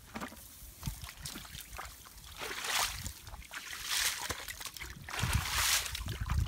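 Shallow muddy water and wet mud splashing and sloshing as they are worked by hand and with a hoe, in several bursts about two and a half, four and five and a half seconds in, with low thumps near the end.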